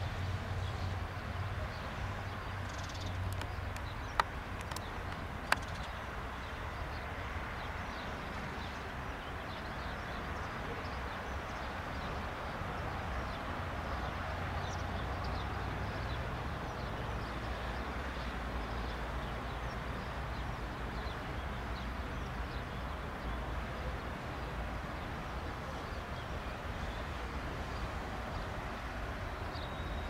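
Beech C90A King Air's twin Pratt & Whitney PT6A turboprops running at taxi power, heard from afar as a steady engine noise, with birds chirping and two sharp clicks about four and five and a half seconds in.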